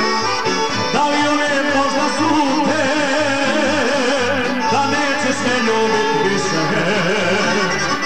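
Live, amplified Serbian folk music: a man sings with a wavering vibrato into a microphone over a band with a steady bass beat.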